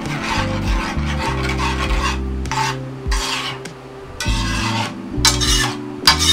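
A spoon scraping and stirring thick cream sauce around a metal frying pan, in repeated strokes: a near-continuous run at first, then separate strokes.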